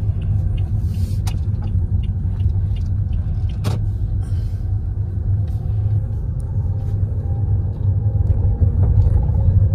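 Steady low rumble of a moving car heard from inside the cabin: engine and road noise, with a couple of faint clicks.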